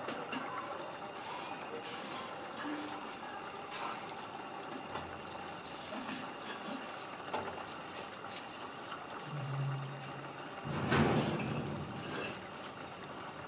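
Mutton curry simmering in an aluminium pot on a gas burner, a steady low bubbling with scattered small clicks and a brief louder noise near the end.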